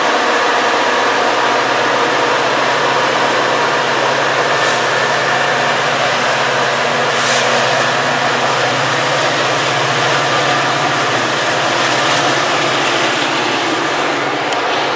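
Metra EMD F40PH diesel locomotive and its bilevel commuter cars passing close by: a loud, steady engine drone with a steady whine over the noise of the train going by. It eases off a little near the end as the train moves away.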